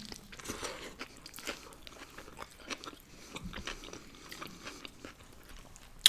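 A person chewing a mouthful of cheeseburger and fries close to the microphone, with soft wet smacks and small crunches.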